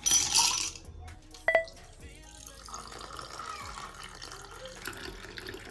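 Ice cubes tipped off a spoon clatter into a drinking glass, and a single clink rings on the glass about a second and a half in. From about three seconds in, a red drink is poured over the ice in a steady splashing stream.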